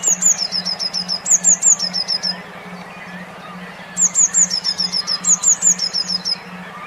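A songbird sings two loud phrases of quick, high, downward-slurred notes, each about two and a half seconds long, with a short pause between them. Behind it are faint chirps from other birds and a low hum that pulses about three times a second.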